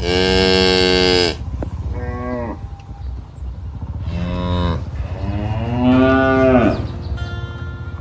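Cattle mooing: four moos, the first and the last the loudest and longest, the last rising and then falling in pitch.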